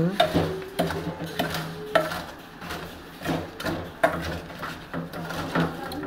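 A steel tumbler pounding and grinding green chillies in a steel bowl: repeated short metal-on-metal knocks and scrapes, several early on about half a second apart.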